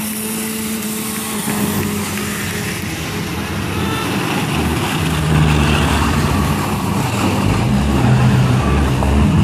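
Stock car engines running around a demolition derby track, growing louder about halfway through as deeper engine notes come in.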